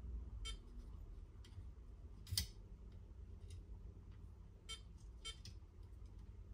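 Faint, scattered small clicks and ticks of hand tools touching a phone's circuit board during desoldering, with one sharper tap about two and a half seconds in, over a low steady hum.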